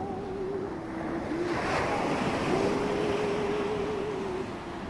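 Ocean surf washing on a beach, with a wave surging up louder about a second and a half in, over a faint wavering hum.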